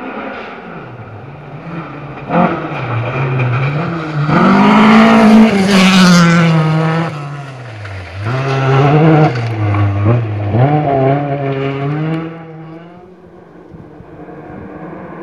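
Rally car speeding along a gravel forest stage, its engine revving hard with pitch repeatedly rising and dropping as it shifts and lifts. It is loudest a few seconds in as it passes close, swells again, then fades away near the end.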